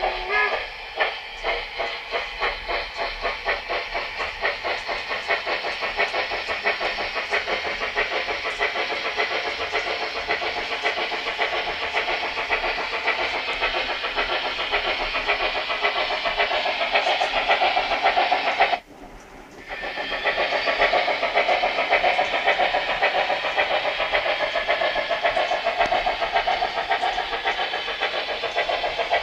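Steam-locomotive chuffing and hissing from a Märklin Union Pacific Big Boy model. It opens as separate rhythmic chuffs that quicken over the first few seconds, then blends into a steady rush. About two-thirds of the way through it drops out for about a second, then resumes.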